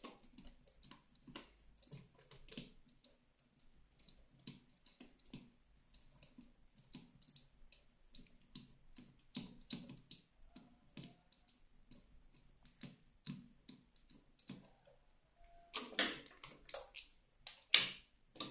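Faint, irregular clicks and ticks of a screwdriver working the screws of an electrical outlet's plate cover, a few a second. Near the end there is louder scraping and one sharp knock as the plate is handled.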